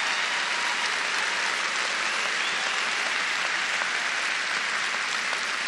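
A large audience applauding, a dense, steady wash of many hands clapping.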